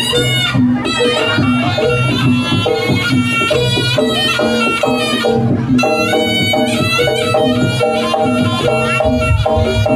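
Jaranan gamelan accompaniment: a nasal reed shawm (slompret) playing a held, stepping melody over percussion with steady low strokes.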